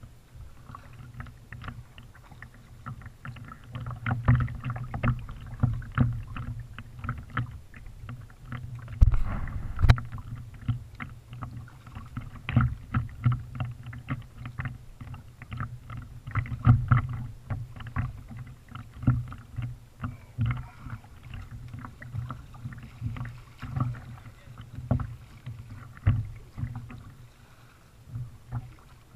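Kayak being paddled: water splashing and dripping off the paddle blades, with a stream of irregular small clicks and knocks and two heavier thumps about nine and ten seconds in.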